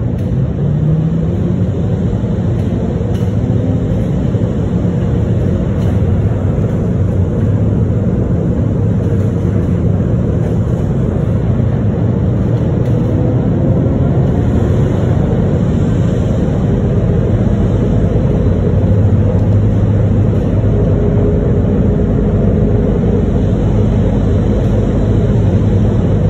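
Miami Metromover rubber-tired people-mover car running along its guideway, heard from inside the front car: a steady low rumble, with a short rising whine about a second in.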